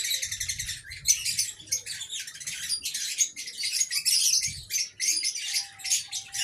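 Many aviary birds chirping and chattering at once in a continuous stream of short, high-pitched calls, with a brief thin whistle near the end.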